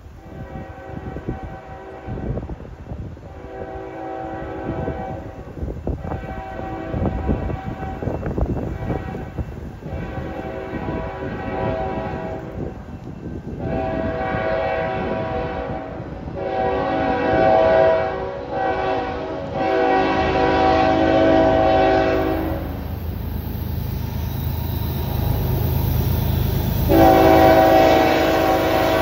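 Freight diesel locomotive's air horn sounding a chord in a series of about nine blasts, long and short, growing louder as the train approaches. In the last third the low rumble of the locomotive's engine and wheels comes in under the horn.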